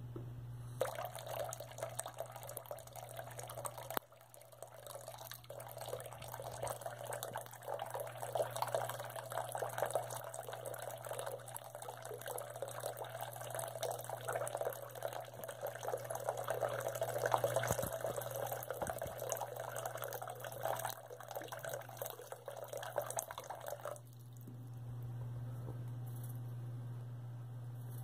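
Thin stream of tap water running into a bathroom sink and splashing around the drain, stopping suddenly about four seconds before the end. A steady low hum runs underneath.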